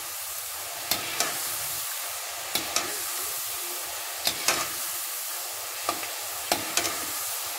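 Green field bean (mochai) lentils deep-frying in hot oil in a kadai: a steady foaming sizzle, with a metal perforated ladle clinking and scraping against the pan several times as they are stirred. The oil is still foaming hard because the beans are not yet cooked through; they are done once the foam subsides.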